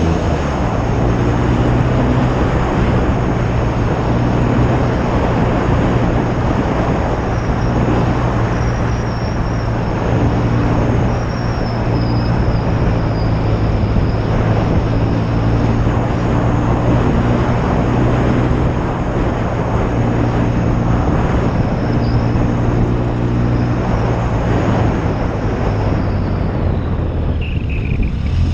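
1972 BSA Lightning's 650 cc parallel-twin engine running at a steady cruising speed, its pitch holding level, under loud wind rush.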